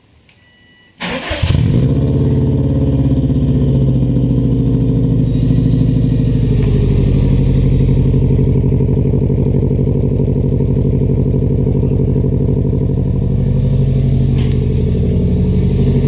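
2003 Subaru WRX's turbocharged 2.0-litre flat-four cranking and catching about a second in, then idling loud and steady through a large single-tip exhaust. This is the first start on an ECU freshly flashed with an Accessport tune.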